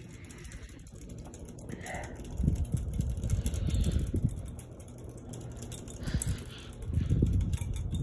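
Hampton Bay Gazebo II 42-inch ceiling fan running on high speed. Low, gusty rumbles of wind noise swell up about two seconds in and again near the end.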